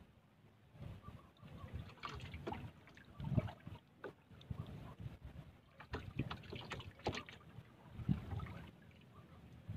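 Water lapping against the hull of a small paddled outrigger boat, with irregular soft knocks of the boat and light wind on the microphone.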